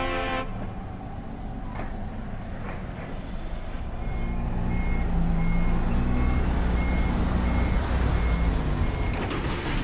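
A heavy vehicle's engine running with a low rumble, its backup alarm beeping steadily, about three beeps every two seconds, from about four seconds in.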